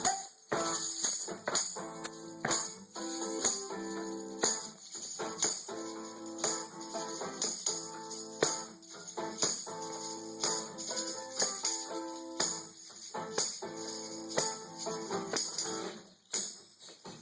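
Instrumental music: rhythmic pitched instrument notes with a bright jingling percussion layer on top.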